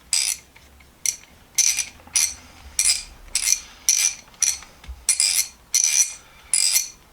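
A freshly reassembled and oiled hand socket ratchet being swung back and forth, its pawl giving short bursts of rapid metallic clicking about twice a second. This shows the once-seized mechanism now ratchets freely.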